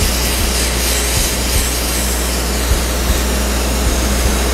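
Abrasive blasting gun spraying media at high pressure against a car body shell. It makes a loud, steady hiss over a deep rumble, with a few sharp ticks.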